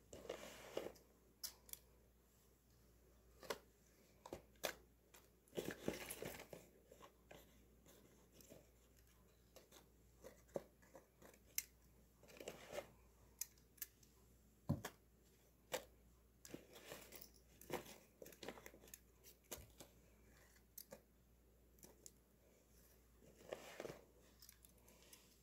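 Faint rustling and crinkling of a homemade paper-and-masking-tape mini trash bin being handled, with scattered small clicks and taps. A few longer rustles stand out, the last near the end as a hand grips the bin.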